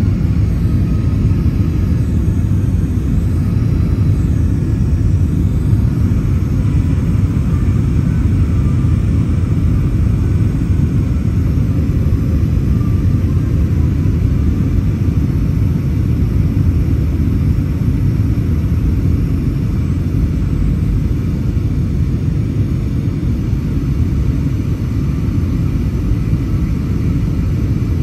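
Cabin noise inside an Airbus A321-200 airliner during its descent: a steady, even rumble of the engines and the airflow around the fuselage.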